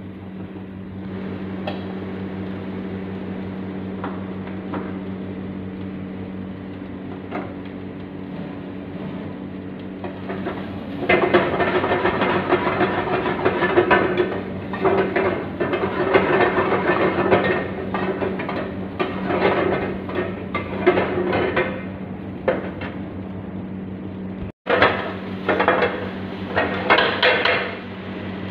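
Metal spatula scraping and clattering against a steel wok as rice is stir-fried and tossed over a high gas flame, in quick irregular strokes. It starts about a third of the way in, breaks off for a moment near the end, then resumes. A steady low hum runs underneath.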